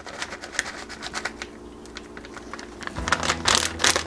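Plastic bag of shredded cheese crinkling and being shaken out into a glass measuring jug: a string of light rustles and ticks, busier and louder near the end with a dull thump about three seconds in.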